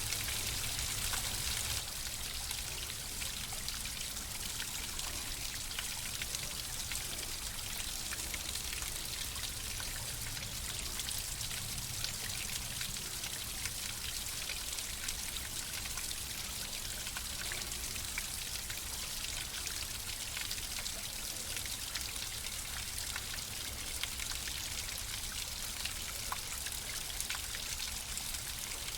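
Flowing water running steadily, an even rushing with many small drips and splashes on top.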